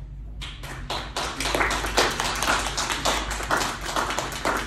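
Small audience applauding, with many separate hand claps in an irregular patter that starts about half a second in.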